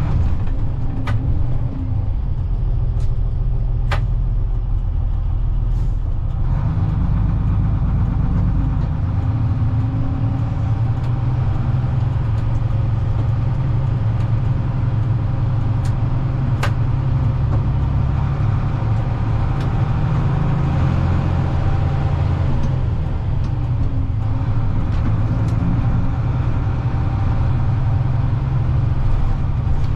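Bedford YMQ coach's diesel engine heard from on board while under way, a steady low drone whose pitch rises and falls several times as the revs change. A few sharp clicks come early on and again about halfway through.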